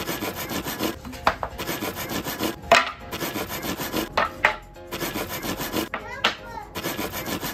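Hand saw cutting through a softwood board in long back-and-forth strokes, with short breaks between them.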